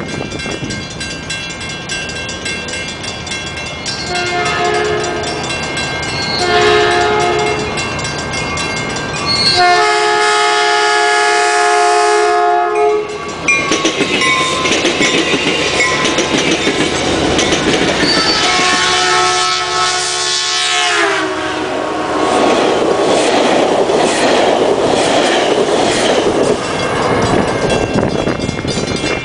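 Locomotive air horn of a commuter train sounding a multi-note chord: two short blasts, then a long blast of about three seconds, and later another blast that slides down in pitch. After it comes the steady rumble and clatter of train wheels on the rails.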